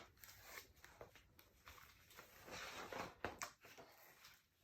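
Faint paper rustle and a few soft clicks of a picture-book page being turned, in an otherwise near-silent room.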